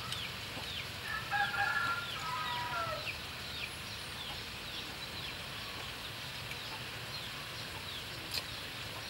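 A rooster crows once about a second in, a crow lasting about two seconds that ends on a falling note. Under it, short high chirps repeat about twice a second.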